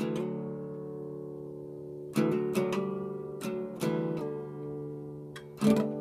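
Mahogany acoustic guitar played, recorded through an iPhone's built-in microphone. A chord rings out at the start, then comes a run of quick strummed and picked chords about two seconds in, and two more strums near the end.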